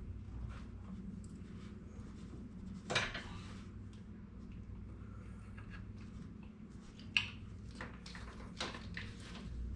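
Metal parts and tools clinking and clattering now and then while a clutch cable is being fitted, with the loudest clanks about three seconds in and a sharp click about seven seconds in, over a steady low hum.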